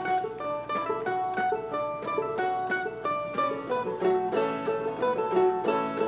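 Live acoustic music from a small string band: plucked strings picking out a melody in quick, steady notes, with no singing.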